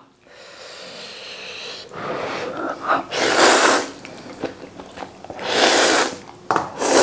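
A person slurping hele noodles hard from a bowl, with two long sucking slurps about three and six seconds in.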